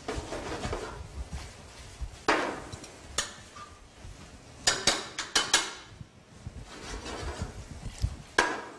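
Metal tongs scraping and clicking against a metal sauté pan as tagliatelle is tossed, with the pan shaken on the stove grate. A quick run of sharp metal clacks comes about halfway through, and another near the end.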